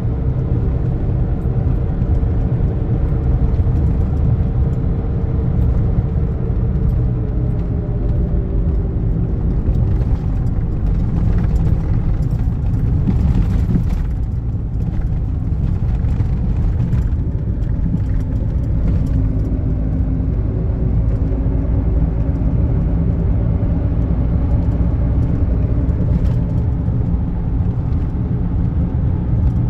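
Car interior noise at cruising speed: a steady engine drone and tyre rumble. About halfway through the road noise gets rougher for several seconds as the tyres run over cracked, patched asphalt.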